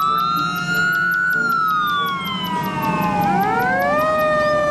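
Fire engine siren wailing, its pitch rising, falling slowly, then rising again about three seconds in.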